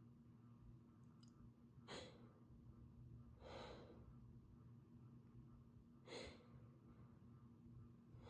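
Faint breathing of a woman with a cold: short breaths about two and six seconds in, with a longer breath in between and another starting at the end.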